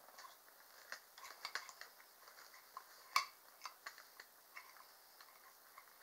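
Faint scattered clicks and taps of small plastic toy doctor-kit pieces being handled, with one sharper click about three seconds in.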